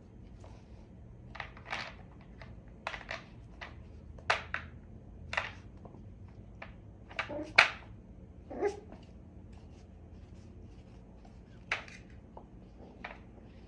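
About a dozen scattered, irregular clicks and knocks, a few of them sharper and louder, over a low steady hum.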